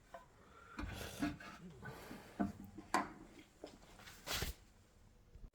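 Faint rubbing and scraping with a few light clicks as petrol sediment is cleaned out of the bowl of a Briggs and Stratton lawnmower carburettor, with one brief louder rustle about three quarters of the way through.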